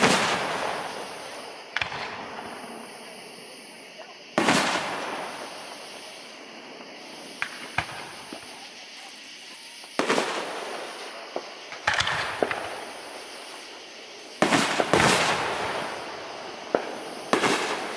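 Aerial firework shells bursting: about seven loud booms, each trailing off in a rolling echo, with smaller sharp pops and cracks in between.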